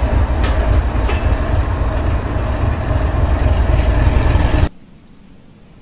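GE 4,500 hp diesel-electric locomotive with a GEVO engine running as it moves along the track: a loud, steady low rumble with a faint steady hum and a few clicks. It cuts off suddenly about four and a half seconds in.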